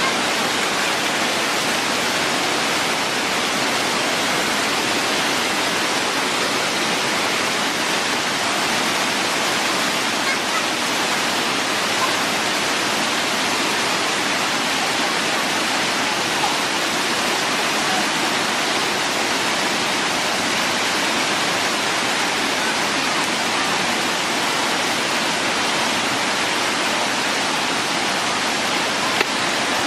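Waterfall rushing, a steady, even roar of falling water with no change throughout.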